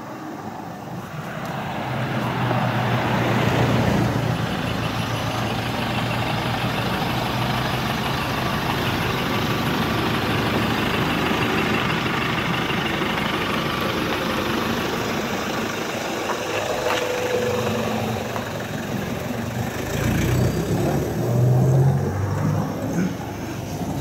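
Songthaew pickup truck driving, with steady engine and road noise that builds over the first couple of seconds; the engine note changes and grows louder near the end.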